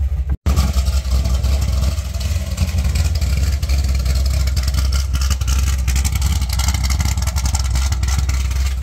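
Chevrolet Corvette C6 Z06's 7.0-litre LS7 V8 and tyre noise, steady and low, while cruising at about 50 mph, heard from inside the cabin. The sound cuts out for a split second just after the start.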